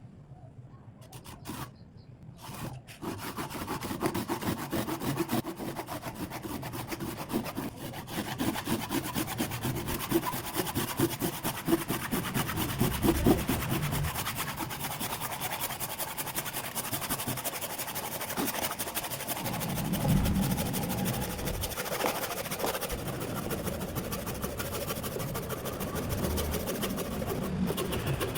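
Japanese kataba handsaw cutting through a block of hardwood with steady, continuous rasping strokes that start about three seconds in.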